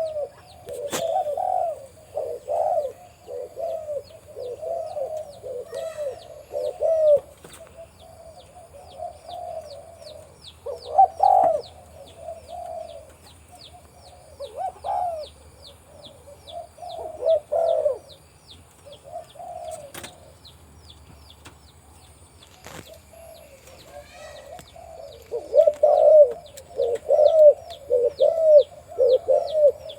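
Male spotted dove cooing in repeated phrases, in bouts that grow denser near the end. Faint high chirps repeat steadily behind it, about two a second, with a few sharp clicks.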